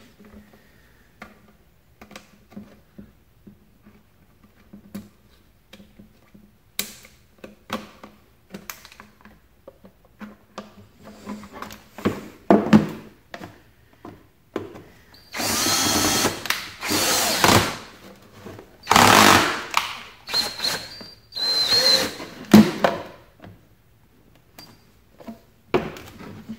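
DeWalt cordless drill with a large twist bit boring into the wall of a plastic watertight box, run in several bursts of a couple of seconds each through the second half. Quieter knocks and handling of the box come before it.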